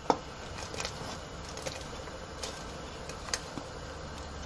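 Small raw dough balls for mutton chakkoli dropped a few at a time into simmering masala, making scattered light ticks and soft plops over a low steady hum.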